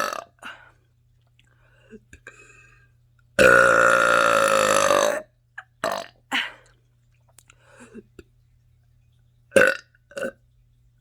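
A woman burping: one long, loud burp of about two seconds a little over three seconds in, then a few short burps.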